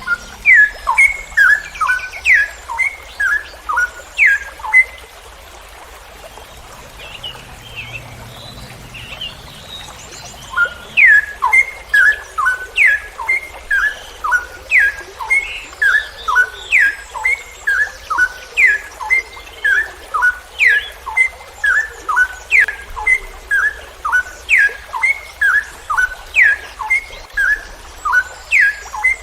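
Straw-headed bulbul (cucak rowo) singing loudly: quick runs of short whistled notes, each phrase opening with a note that sweeps down from high to low, then a few lower notes. It sings for about five seconds, falls silent for several seconds, and takes up the song again about eleven seconds in.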